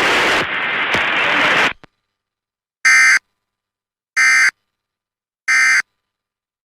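Emergency Alert System End-of-Message data tones: three identical short, harsh digital bursts about 1.3 s apart, closing the flash flood warning broadcast. Before them, radio hiss cuts off about a second and a half in.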